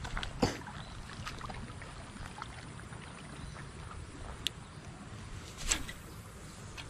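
A few brief splashes of water, the loudest near the end, over steady low background noise.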